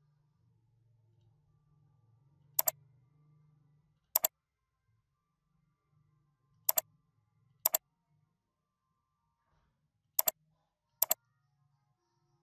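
Computer mouse clicks: six sharp, separate clicks at uneven intervals, over a faint low hum.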